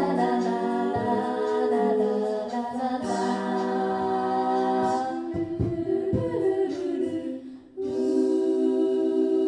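Six-voice a cappella group singing held, blended chords into microphones, with a few low thumps in the middle. The chord breaks off briefly about three-quarters through and a new sustained chord begins.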